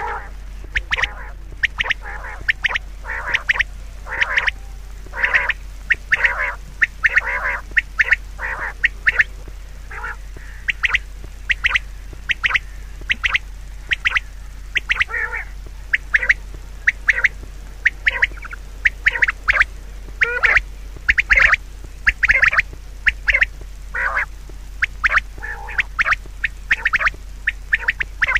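Birds calling in short squawking calls, several a second and overlapping, keeping on without a break.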